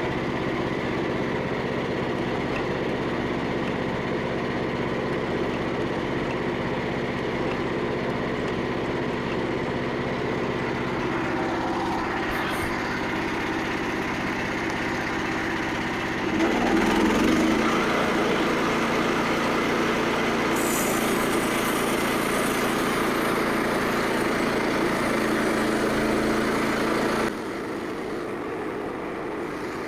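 Small gas engine on a portable bandsaw sawmill running steadily. About sixteen seconds in it revs up and runs louder, then drops back suddenly near the end.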